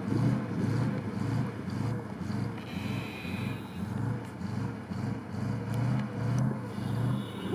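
GAZ-66 truck's V8 engine labouring under load on a steep snowy climb, its sound swelling and fading in an even rhythm about twice a second.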